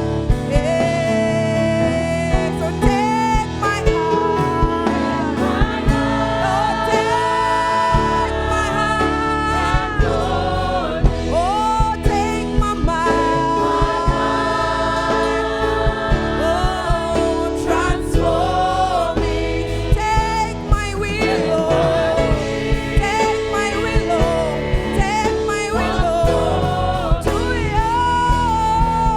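Gospel choir singing a worship song over instrumental backing with a steady beat.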